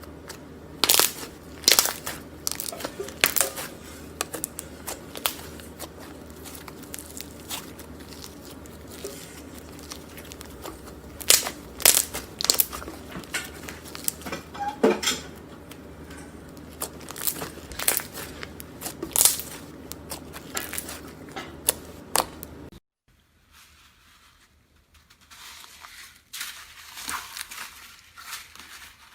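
Slime being squeezed and worked by hand, giving irregular crackles and sharp pops over a steady low hum. About three-quarters of the way through it cuts abruptly to a much quieter stretch with only faint crackling.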